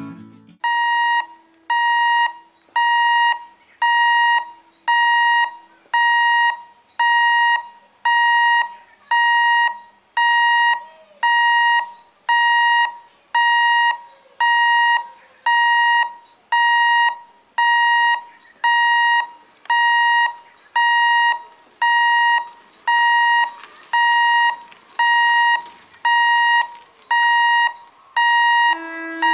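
Level crossing warning alarm sounding a steady electronic beep about once a second, each beep about half a second long, warning of an approaching train.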